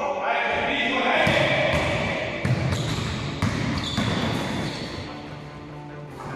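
Basketball bouncing on a hardwood gym floor and being passed and caught, a few sharp knocks that echo in the hall.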